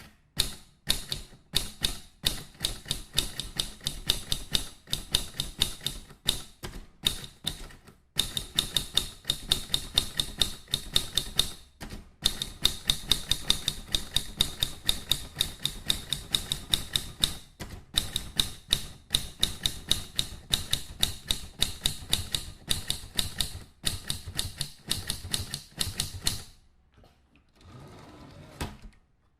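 Rapid mechanical clicking, about four sharp strokes a second in uneven runs with short breaks. It stops a few seconds before the end, leaving a faint hiss and then silence.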